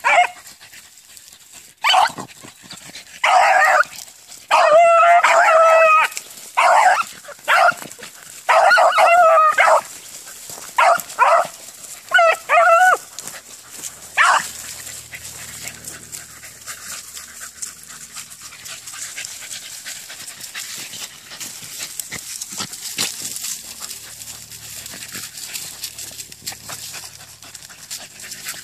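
Beagle hound baying: about nine drawn-out bays in an irregular string over the first fourteen seconds, then the voice stops.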